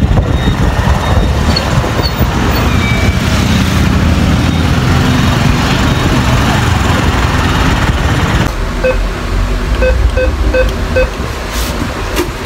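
Wind rushing over the microphone with motorbike road noise while riding pillion. About eight and a half seconds in it cuts to quieter surroundings, where an ATM gives about five short beeps as its buttons are pressed, followed by a few clicks.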